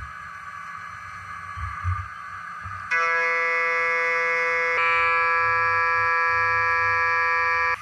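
Background music of held chords, fainter at first and stepping up in loudness about three seconds in, with a change of chord near five seconds.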